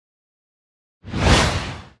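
A single whoosh sound effect about a second in, swelling quickly and fading away within a second.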